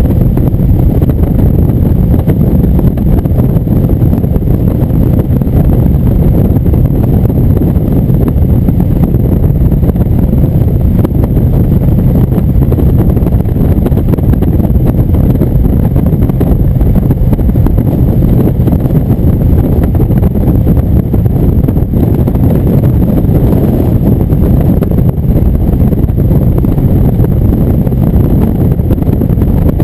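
Indian V-twin motorcycle cruising at highway speed, its engine rumble mixed with heavy wind buffeting the handlebar camera's microphone. The low rumble stays steady, with no gear changes or revving.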